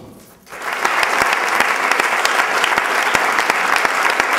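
A large audience applauding. The clapping starts about half a second in and holds steady.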